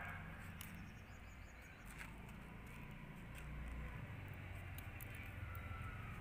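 Faint ambience with a steady low rumble, a few soft clicks of scissors cutting a thin foam sheet, and some faint bird chirps near the end.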